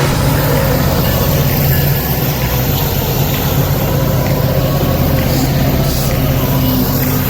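Locomotive engine running: a steady low drone under a wide hiss of noise.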